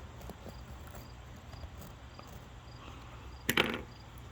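A cricket chirping steadily, a short high chirp about twice a second, with one brief loud noise about three and a half seconds in.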